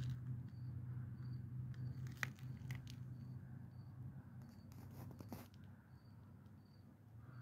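Quiet handling noise: a low steady hum with a few soft clicks, and a faint high chirp repeating roughly every half second.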